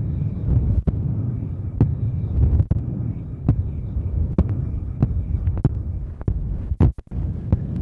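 Vigorous rubbing on an ASMR ear microphone, the 'helicopter' ear-cleaning trigger: a loud low rumble with sharp clicks at a steady rhythm, a little more than one a second.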